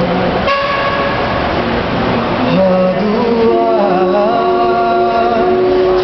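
A small group of male voices singing without words, holding sustained notes in harmony from about halfway in, after a first half of scattered voices.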